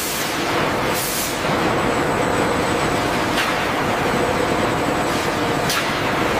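Heavy factory machinery running steadily: a dense mechanical noise with a faint hum, broken by three short sharp bursts at roughly even intervals.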